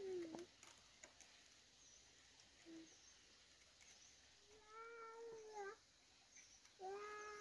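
A cat meowing faintly in drawn-out calls about a second long, each holding one pitch and dropping at the end. One call ends just after the start, another comes in the middle, and a third begins near the end. Faint clicks fall between the calls.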